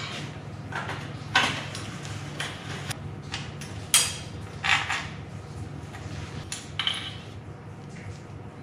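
Light metallic clinks and rattles at irregular moments as an electric furnace's heating-element rack and its coil wire and ceramic insulator hardware are handled during restringing, over a low steady hum.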